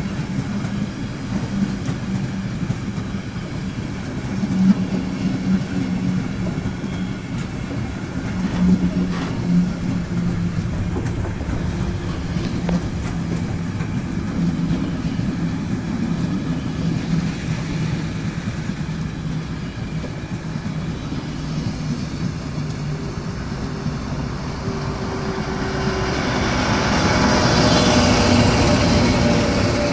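Empty freight flat wagons rolling past on the rails: a steady rumble and hum with a few sharp knocks. Over the last few seconds the ČD Cargo class 742 diesel-electric locomotive passes close by, and its running engine grows louder and brighter.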